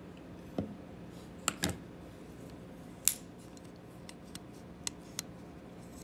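Leatherman Charge Plus TTi titanium multi-tool being handled, its metal folding parts giving a scattering of sharp clicks, the loudest about three seconds in.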